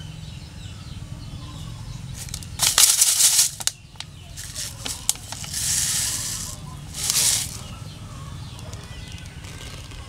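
Rustling, scraping handling noise in dry sand and leaves, in three bursts: the loudest about three seconds in, another around six seconds and a short one near seven. Faint bird chirps and a steady low hum lie underneath.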